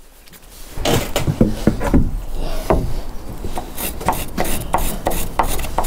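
Timber being handled against a wooden shed roof frame: irregular wooden knocks and rubbing, starting about a second in.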